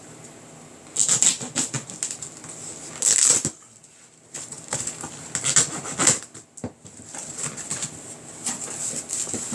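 A cardboard box and its packing being opened and handled by hand: rustling and scraping in irregular bursts, with short quiet gaps between.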